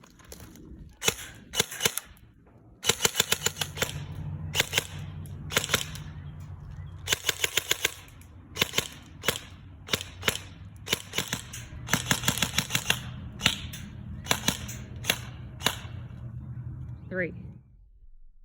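Electric airsoft SMG firing, mostly in short rapid bursts with some single shots, each shot a sharp crack. The firing stops shortly before the end.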